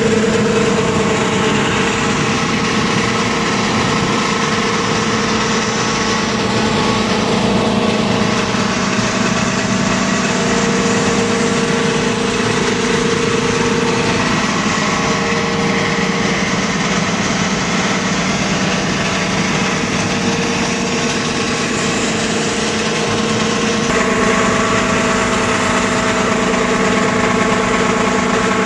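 Mini copper wire granulator running steadily: a constant machine hum with a broad whirring hiss over it, shifting slightly in tone a few times.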